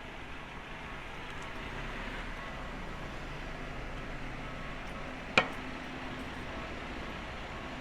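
Steady city street background noise with a low hum of traffic, broken by a single sharp knock about five seconds in.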